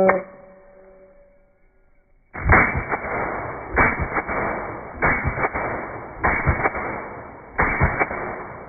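Six shots from a suppressed AR-15-style rifle in a six-shot bill drill, played in slow motion: each report is a drawn-out low boom, about a second and a quarter apart, starting a little over two seconds in.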